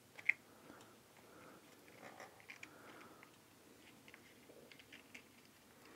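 Faint crackling and light clicks of desoldering braid pressed by a soldering iron onto solder joints on a circuit board, with one sharper click just after the start.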